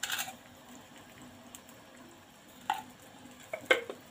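Spiced chicken broth simmering in a wok, a faint steady bubbling, with a brief rustle at the start and a few short, sharp clicks and taps near the end.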